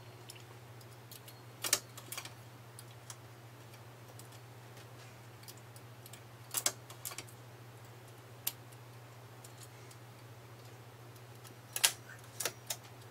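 Light metal clicks of a transfer tool and latch needles on a knitting machine's needle beds as stitches are moved by hand between the ribber and the main bed. The clicks are sparse, in small groups: two near the start, a pair a little past the middle, one more, then three near the end, over a steady low hum.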